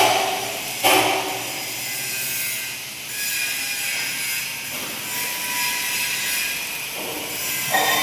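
MIG welding arc on pipe, a steady crackling hiss, broken by sharp metallic knocks that ring briefly at the start, about a second in, and near the end.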